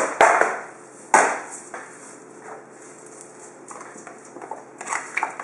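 A cardboard trading-card box being handled on a wooden table. A few sharp knocks come at the start and about a second in, then quieter rustling and small clicks.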